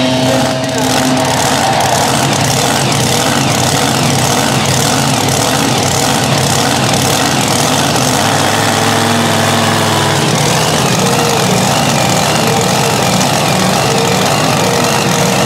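Supercharged engine of a mini unlimited pulling tractor idling steadily, its note changing briefly about eight seconds in.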